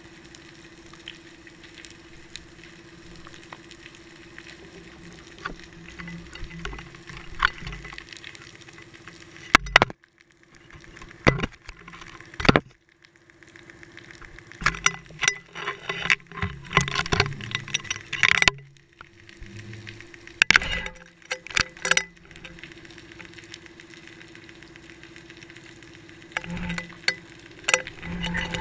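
Underwater sound picked up through a GoPro's waterproof housing on a fishing line: a faint steady hiss with a thin low hum. Through the middle come sharp knocks and clattering scrapes as the housing bumps and rubs against something, with a few more knocks near the end.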